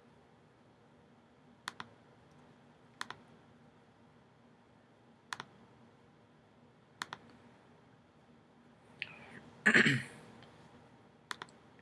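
Computer mouse clicking: five sharp double clicks spread out, each a press and release heard close together. A single brief, much louder burst of noise comes about ten seconds in.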